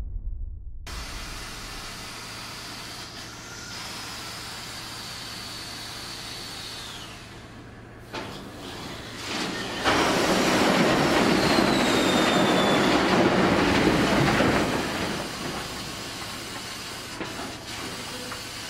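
Heavy mine truck running with a steady low engine hum, its brakes squealing in high falling tones. About ten seconds in, a loud rushing hiss of air lasts around five seconds.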